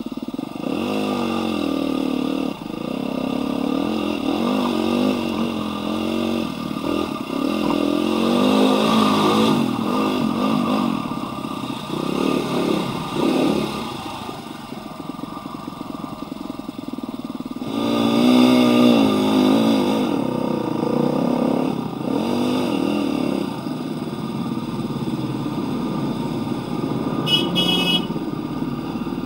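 Dirt bike engine being ridden hard, revving up and down over and over as the throttle opens and closes. It is loudest about eight seconds in and again a little past halfway.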